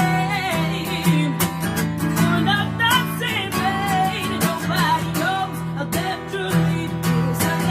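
Strummed acoustic guitar with a woman singing over it, in a solo singer-songwriter performance. The voice comes and goes in short phrases over steady chords.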